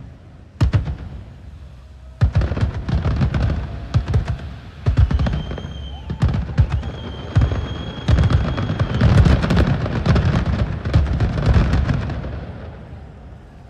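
Fireworks display: quick volleys of sharp bangs with dense crackling between them, dying away near the end. A high steady whistle sounds for a couple of seconds in the middle.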